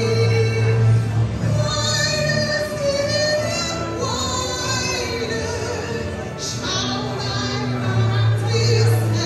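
A woman singing into a microphone through a PA system, with instrumental accompaniment underneath.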